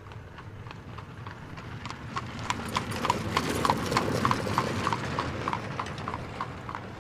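Horse hooves clip-clopping at an even pace over a low rumble, growing louder to a peak about halfway through and then fading away, as of riders going past.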